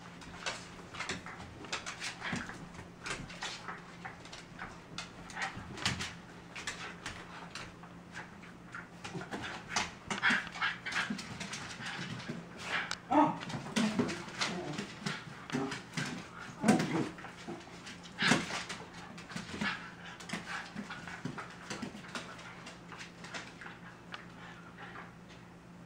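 Two schnauzers play-fighting: claws clicking and scrabbling on the hardwood floor throughout, with short whimpering dog sounds through the middle.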